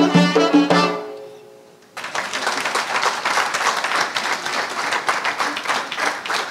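Armenian duduks and accordion end a folk piece, the last notes fading out in the first second or two. After a brief lull, audience applause breaks out and carries on.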